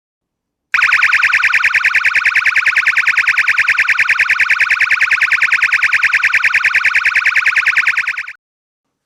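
Takenaka Engineering ASF-12SR/SW LED flash multi-siren sounding one of its alarm tones: a loud, fast, even warble that starts about a second in and cuts off sharply near the end.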